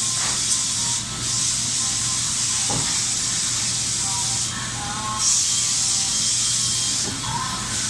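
Haas VF-5 vertical machining center at work milling HDPE: a steady spray hiss over the machine's low hum. The hiss cuts out briefly about a second in and again for under a second around the middle.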